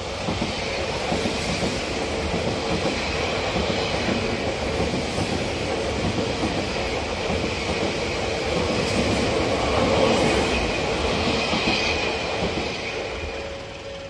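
Odakyu Line commuter train passing close by: a steady rush of wheels on rails that builds just after the start, peaks about ten seconds in and fades away near the end. A thin high whine rises over the noise late in the pass.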